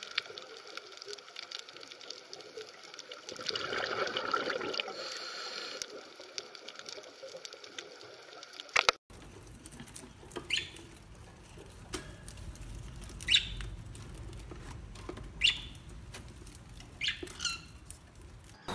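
Underwater hiss with fine crackling for the first half. Then, after a cut, a budgerigar gives short, sharp chirps every couple of seconds over a faint low rumble.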